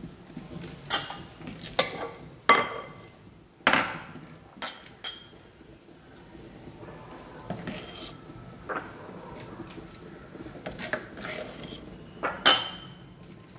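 Metal ice-cream scoop knocking and clinking against ceramic and glass bowls while cake batter is scooped and shared out: about a dozen sharp knocks at uneven intervals, some with a short ring.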